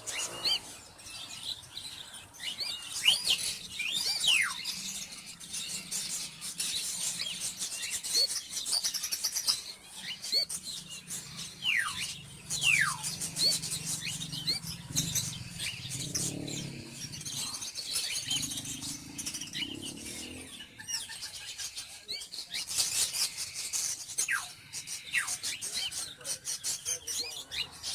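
Cockatiel chicks calling: many short, sharply falling chirps over a raspy, hissing begging cry, typical of chicks waiting to be hand-fed.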